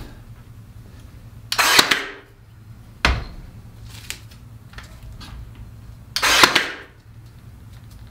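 Cordless brad nailer firing brads into a log, twice, about four and a half seconds apart; each shot is a loud, short burst. A single sharp knock falls between the two shots.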